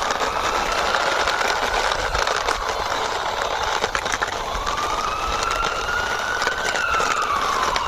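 Toy ambulance pushed along by hand, its wheels whirring with a whine that slowly rises and falls as it speeds up and slows down.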